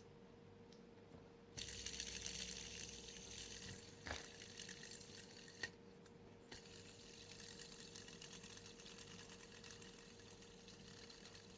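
Clear plastic fidget spinner whirring faintly on its bearing after being flicked, a slightly noisy, hissy spin. It starts about a second and a half in, with a click about four seconds in, and is flicked again after a brief stop near the middle.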